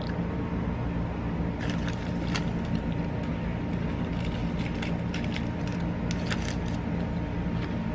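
Short crisp crunches of a KitKat chocolate wafer being bitten and nibbled, in two clusters about two seconds in and again around five to six seconds. Under them runs a steady low mechanical hum.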